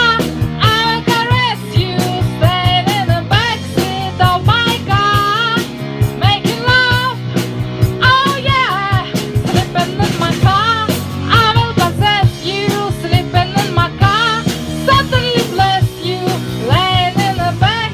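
A woman singing a rock song into a microphone, her voice wavering with vibrato, over instrumental backing with a drum beat.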